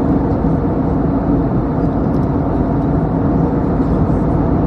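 Steady cabin noise of a jet airliner in flight: a continuous low rush of engines and airflow with a low hum, heard from inside the passenger cabin.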